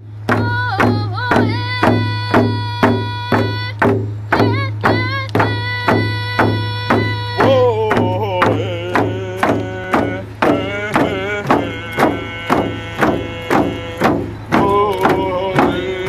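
Hand-held rawhide frame drums beaten in a steady beat of about two strokes a second, with a voice singing a song over them. The melody drops lower about halfway through.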